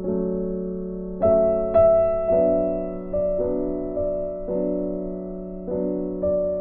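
Background music: slow piano, single notes and chords each struck and left to fade, over a steady low held tone. The loudest notes come about a second and a half in.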